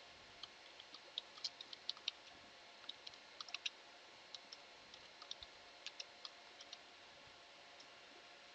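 Faint, irregular clicks of computer keys being typed, in uneven runs, stopping about seven seconds in.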